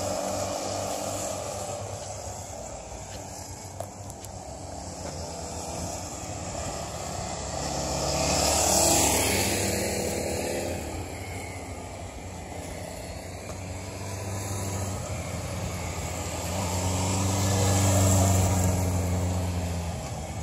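Motorcycle engines running as the bikes are ridden around a cone course, revving and easing off. A bike passes close about nine seconds in and again near the end, each time swelling up loud and falling away.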